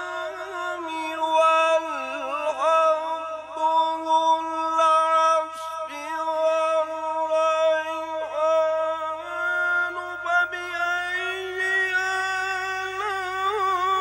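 Male qari reciting the Quran in a melodic tilawat style, holding long notes with ornamented wavering turns.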